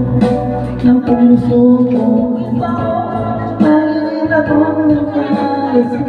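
A man singing a song into a handheld microphone over backing music, holding long notes that step from pitch to pitch.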